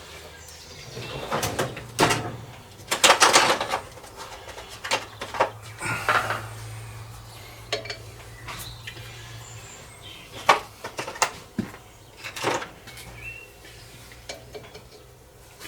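Hand tools and small metal parts clinking and knocking against a cylinder head and the workbench, in irregular bursts as the head's fittings are being stripped off. A low steady hum runs underneath and drops out for short stretches.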